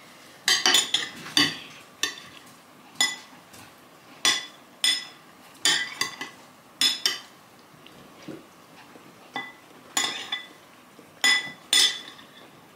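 Metal spoons clinking against ceramic soup bowls while eating, in irregular strikes about every half second to a second, each with a short ringing tone.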